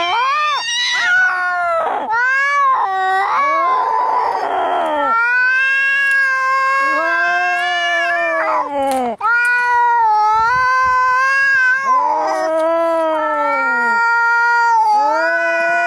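Cats fighting: long, drawn-out yowls, one after another, each rising and then falling in pitch, with a harsh hiss about four seconds in.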